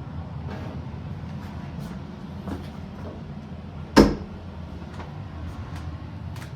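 A single sharp knock about four seconds in, the loudest thing here, over a steady low hum with a few faint clicks.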